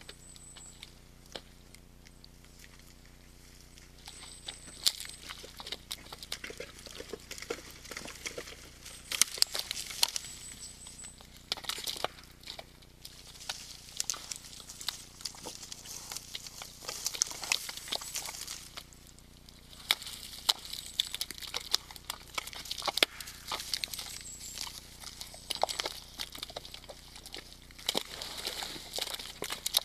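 Red deer moving about in a mud wallow: irregular squelching and splashing steps in wet mud, rustling, and sharp cracks, thicker after the first few seconds.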